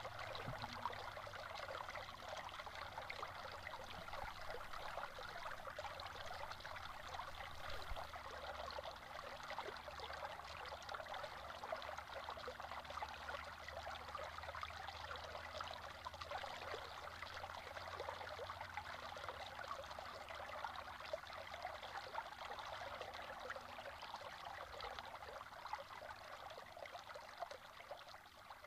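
Water rushing and splashing over rocks in a small cascade: a steady, even splashing that eases off a little near the end.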